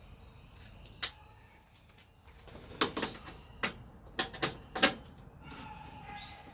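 Sharp metallic clicks and clinks of a hand socket tool on a long extension with a swivel, working the car's 10 mm bolts. There is one click about a second in, then a run of irregular clicks between about three and five seconds in.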